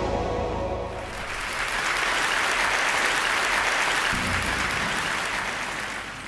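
Intro theme music ends within the first second, then a large audience applauds, the clapping swelling about a second in and dying away near the end.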